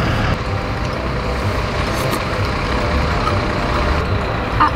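Steady rumble of street traffic, with a heavy vehicle's engine running in it.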